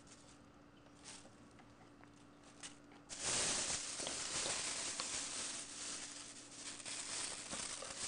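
Thin plastic bag crinkling and rustling as fruit is handled in it. A few faint crinkles at first, then loud, close crackling from about three seconds in.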